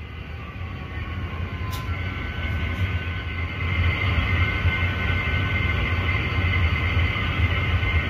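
Model train running on the layout: a steady low rumble with faint high steady tones, growing louder about four seconds in.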